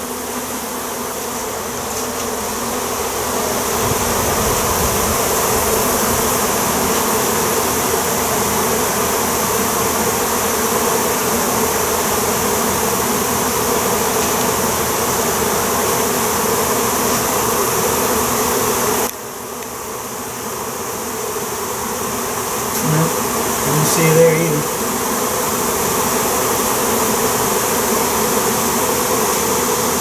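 Dense, steady buzzing of a honey bee swarm in flight around a hive box and door as the swarm moves into the box. The buzz dips sharply about 19 seconds in and builds back up.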